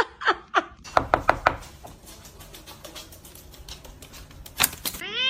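A series of sharp knocks: three short ones at the start, four in quick succession about a second in, and two loud ones near the end, with a wavering cat meow just beginning at the very end.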